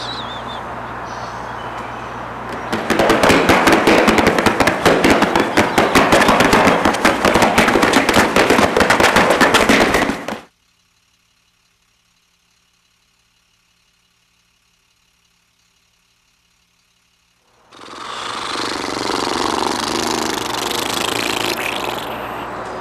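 Improvised foley effect: a loud, dense run of rapid crackling lasting about seven seconds, cutting off suddenly to near silence. After several seconds it gives way to a steady rushing noise.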